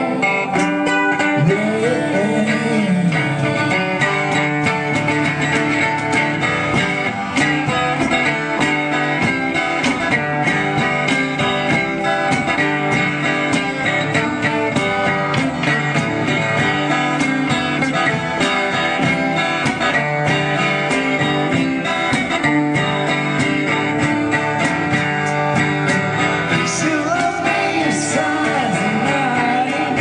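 Live acoustic duo performance: a twelve-string acoustic guitar strummed in a steady rhythm, with a woman singing lead into a microphone, her voice clearest near the start and toward the end.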